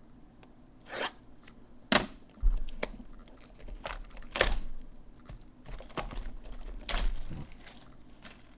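Plastic wrap and cardboard of a sealed trading-card hobby box being torn and crinkled open. A string of sharp rips and crackles, with a dull knock about two and a half seconds in.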